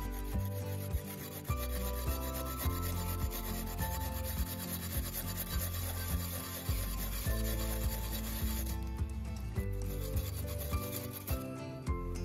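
Fresh wasabi root being rubbed over a flat metal grater: a fast, steady rasping from quick short strokes, pausing briefly twice near the end, with background music underneath.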